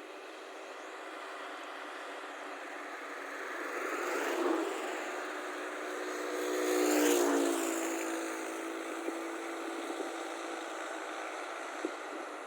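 Motor vehicles driving past close by: one about four seconds in and a louder one about seven seconds in, its engine note dropping in pitch as it goes by.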